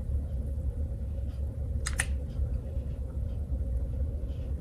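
Small clicks and taps from handling a cordless hot glue gun and a small resin molding as it is glued and pressed into place, with one sharp double click about two seconds in. A steady low hum runs underneath.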